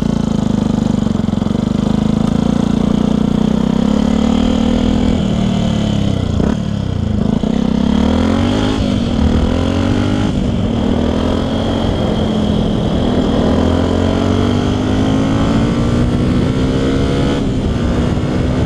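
Yamaha WR125X's single-cylinder four-stroke engine through a LeoVince LV One exhaust, running under changing throttle. The engine note climbs slowly and dips sharply a few times, around six to ten seconds in.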